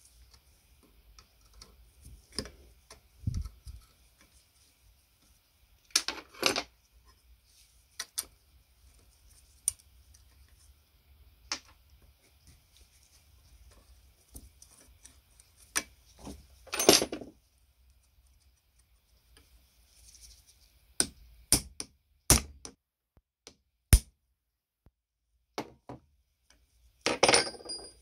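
Scattered metallic clinks and clanks of a wrench and loose steel parts of a clay-pigeon trap's throwing arm being unbolted and handled, with a few longer scraping rattles.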